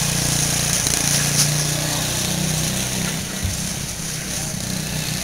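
Quarter midget race car's small single-cylinder engine running as the car laps the oval, its drone wavering in pitch as the throttle changes.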